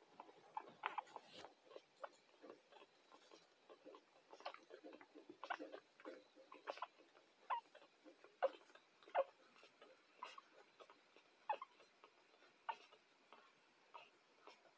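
Week-old schnauzer puppies suckling at their mother: faint, irregular little clicks and smacks, a few a second.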